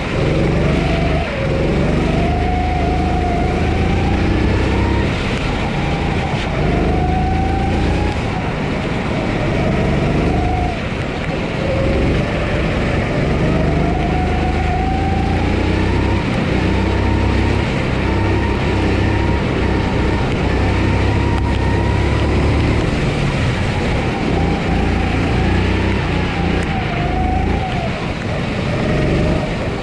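Single-cylinder Honda GX270 four-stroke engine of a Sodi SR4 kart, heard onboard, revving up and dropping back again and again as the kart accelerates out of corners and lifts into them. A steady rushing noise runs beneath it.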